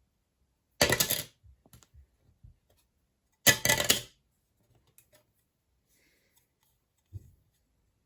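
Unboxing handling noise of a metal card and its packaging: two short bursts of clattering, about two and a half seconds apart, with a few small ticks between and a light thump near the end.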